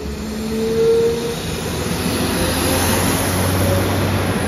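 Transport for Wales Class 197 diesel multiple unit passing along the platform: a low engine rumble and swelling rail noise, with a short steady tone about half a second in.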